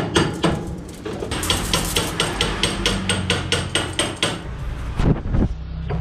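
Rapid, regular strokes of a small hand tool on a copper capillary tube, about five a second, pausing briefly near the start and stopping about four seconds in, followed by a single knock.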